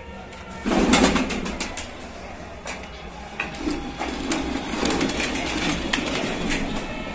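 Domestic pigeons cooing in a flock on a rooftop. About a second in there is a loud burst of wing flapping from a pigeon taking off.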